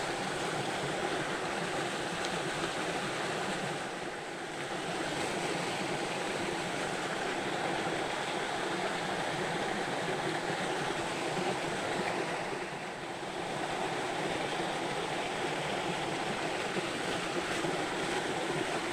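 Steady rush of flowing river water, dipping briefly about four seconds in and again about thirteen seconds in.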